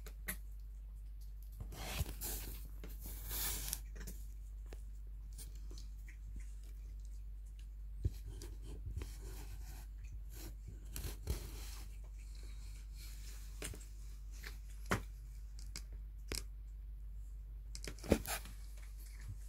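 Kittens' claws catching and scratching on a fleece blanket as they move about and groom, giving soft rustles and scattered small clicks, with a steady low hum underneath.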